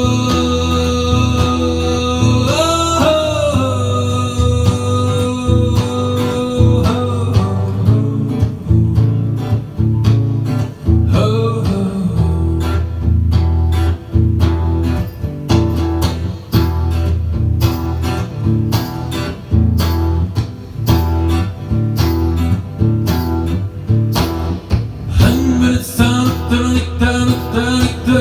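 Acoustic guitar music with singing: long held notes over the guitar at first, then from about eight seconds in fast, percussive strumming.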